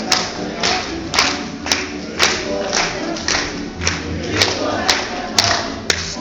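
Young folk dancers singing a kolo together while stamping in rhythm on the wooden stage, about two stamps a second.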